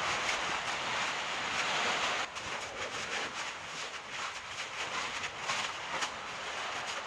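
Crackling and hissing from an ʻaʻā lava flow burning through vegetation: many sharp crackles over a steady hiss.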